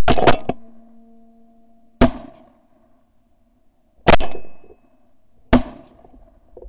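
Shotgun shots at flying ducks: about five sharp blasts spread across a few seconds, the first two in quick succession, each dying away in a short echo.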